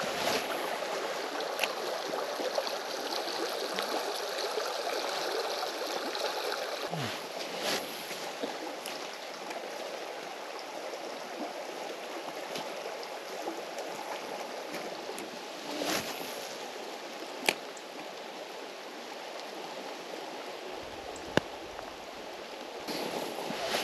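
Steady rush of a river's flowing water, with a few sharp clicks now and then.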